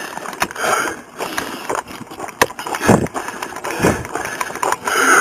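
Footsteps crunching on desert gravel, with the jostle and rub of a chest-worn body camera and irregular knocks of gear at each stride.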